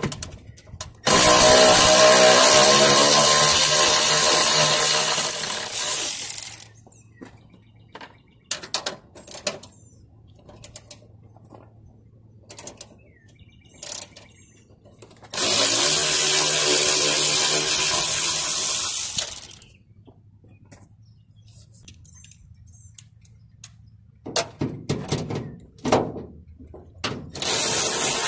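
Power drill-driver spinning bolts out of a car's fender mounts in three long runs, each rising in pitch as the motor speeds up. Between the runs come scattered clicks and clanks of the tool and bolts being handled.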